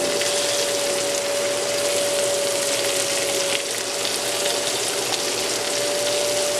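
Chopped vegetables (bacon, onion, bell pepper, mushrooms and freshly added tomatoes) sizzling in a pan as a steady, watery hiss. A steady hum runs underneath.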